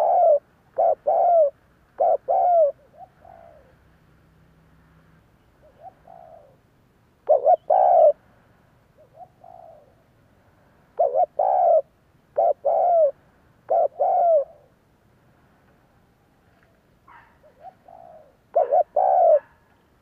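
Spotted dove cooing: groups of two or three low, hoarse coos, each note falling slightly, repeated with pauses of a few seconds between the groups.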